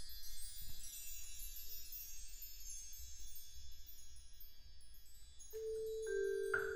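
Mark tree (bar chimes) ringing out and fading after a sweep of the mallet. Near the end, two held notes on a metal mallet-keyboard instrument, then the first quick mallet strikes.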